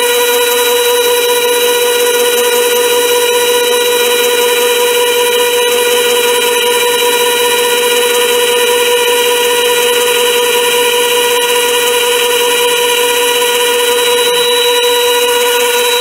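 Chinese mini lathe running under power with a steady, high-pitched whine during a light boring cut. At the very end it is switched off and the whine starts to fall in pitch as the spindle spins down.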